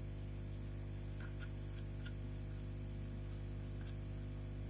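Steady low electrical hum, with a few faint small ticks of handling.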